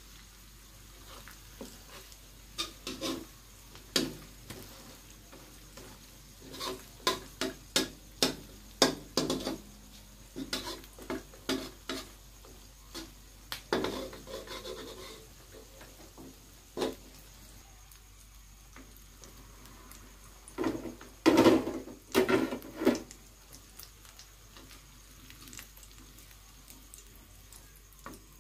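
Plastic spatulas scraping, tapping and clacking against a non-stick wok while an omelette is pressed and turned, in irregular clusters of knocks, loudest about three-quarters of the way through. A faint sizzle of frying runs underneath.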